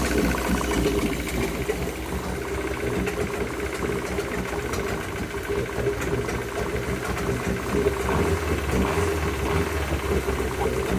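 2000 Yamaha F100 four-stroke outboard motor running steadily with a fast, even knocking tick. The owner suspects rod knock but is unsure whether it is just how this engine sounds.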